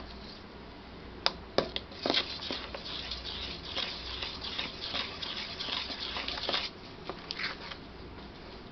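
A spoon stirring thin cake batter in a stainless steel bowl as chocolate powder is mixed in. A few clinks against the bowl come about a second in, then several seconds of quick swishing and scraping that eases off near the end.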